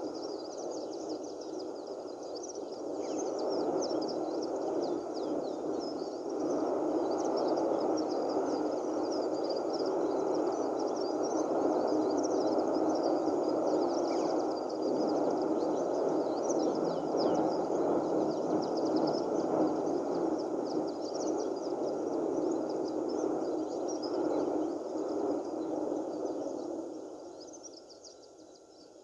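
Steady rumbling roar of the Cumbre Vieja volcano's lava fountain, heard through a TV speaker, with high chirping over it. The roar swells a few seconds in and fades near the end.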